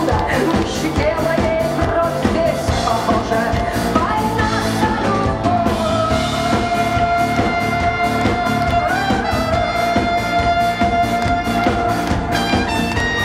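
Live rock band playing an instrumental passage: drum kit, electric guitar and bass under a trumpet carrying a long held melody line that bends slightly in pitch.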